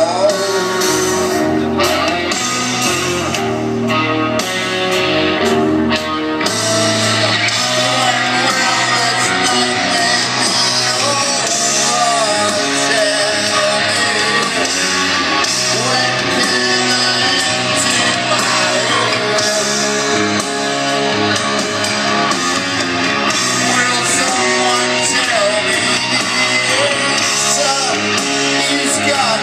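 A heavy metal band playing live, with distorted electric guitar and a male singer, recorded from within the crowd.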